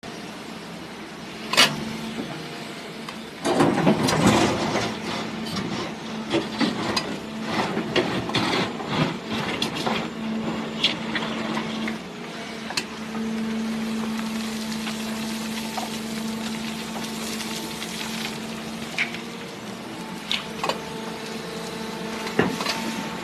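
Hyundai R800LC-9 excavator running with a steady engine hum. A sharp knock comes just under two seconds in, then a burst of clattering at about three and a half seconds and scattered knocks and rattles of material being loaded.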